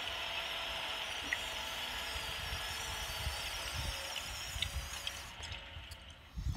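Faint, steady background noise: a low rumble with a light hiss above it and a few small clicks, dying away near the end.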